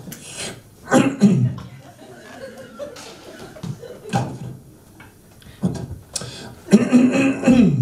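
A man making mouth sound effects close into a handheld microphone: a series of sharp sips and slurps about a second apart, imitating someone drinking coffee, ending in a short hummed vocal sound.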